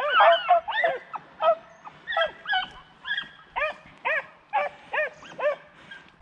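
Beagles baying on a rabbit's scent: a run of short yelping cries, each rising and falling in pitch, about two a second, from more than one dog.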